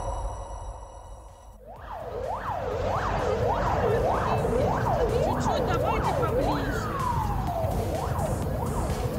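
A siren wailing in fast up-and-down sweeps, about two a second. The sweeps are broken once, about seven seconds in, by a single long falling tone. Before it, music fades out over the first second and a half.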